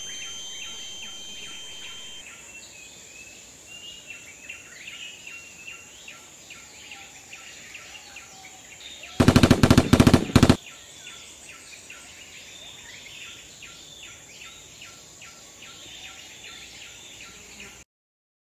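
Sound-effect jungle ambience of a steady high insect buzz and repeated bird chirps, with the last of an explosion fading away at the start. About nine seconds in comes one short burst of machine-gun fire, about ten rapid shots. The sound cuts off shortly before the end.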